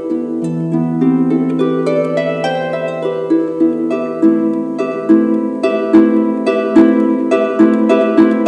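Concert harp playing a flowing passage of plucked, ringing notes, the koto part of a piece for shakuhachi and koto. About five seconds in, the plucks come stronger and more often.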